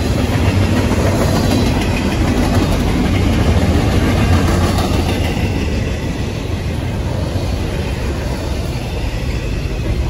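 Double-stack intermodal well cars rolling past, a steady rumble and rattle of steel wheels on the rails.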